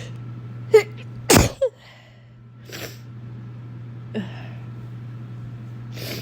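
A person sneezing: a short sharp sneeze about a second in, straight away a louder one, and a fainter one later. The sneezer puts them down to a cold or winter allergies.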